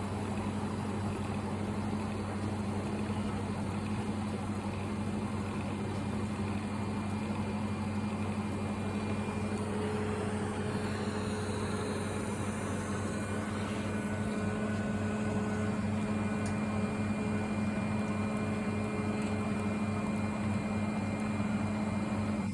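TIG welding arc and welding machine running through a long, continuous weld pass: a steady low buzzing hum with a hiss above it, a little louder in the second half.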